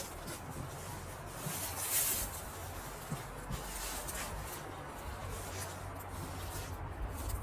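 Rustling and handling of hammock fabric and a sleeping pad, with a brighter rustle about two seconds in, over a steady low wind rumble on the microphone.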